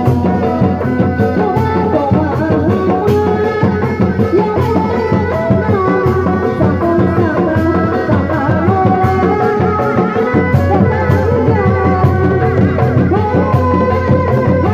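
Live Sundanese folk band music: drums keep a steady beat under a wavering melody line, with bass.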